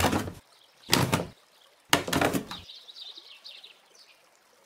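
Sound effect of a dog sniffing: three short, noisy sniffs about a second apart, the last one drawn out. After them come faint high bird chirps.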